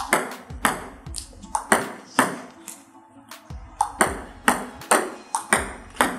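Table tennis serves: a celluloid ball struck by a rubber-faced paddle and bouncing on the table, a quick run of sharp ping-like clicks, some in close pairs, as forehand spin serves are played one after another.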